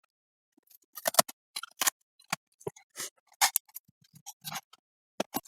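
Irregular sharp clicks and light knocks of hands handling the opened soundbar's circuit board and plastic parts, starting about a second in.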